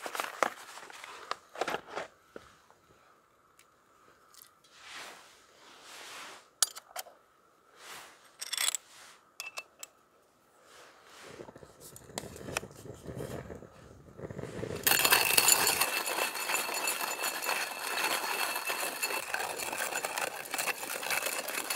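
Crinkling of a paper bag and small clicks and scrapes of camp cooking gear being handled, with quiet gaps between. Then, about two thirds of the way in, a steady, louder hiss.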